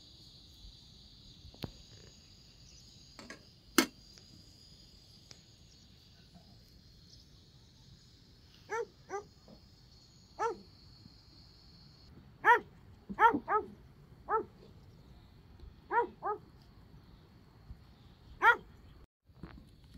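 A dog barking about ten times in short, irregular groups, starting about nine seconds in. A steady high hiss runs under the first half, and there is a single sharp knock about four seconds in.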